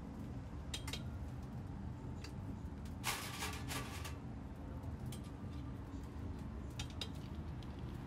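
Steel rotisserie spit clinking and scraping against its metal rack as raw whole chickens are pushed onto it. A few sharp clinks come near the start and near the end, with a denser metallic rattle lasting about a second about three seconds in, all over a steady low hum.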